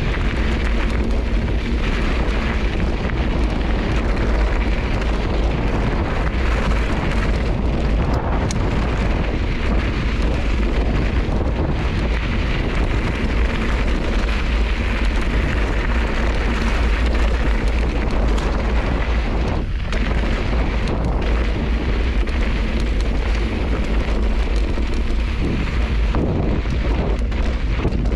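Steady wind buffeting on the action camera's microphone, mixed with the rumble of bike tyres rolling over a loose, rocky dirt trail.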